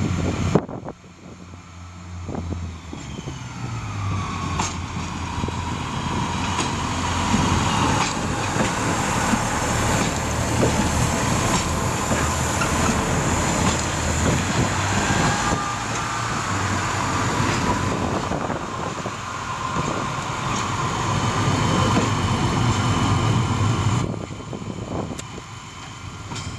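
Class 142 Pacer diesel multiple unit train pulling away under power, its underfloor diesel engines revving up with a rising whine over the first few seconds. It then runs loud and steady as it passes close by, and fades a little near the end as it draws away.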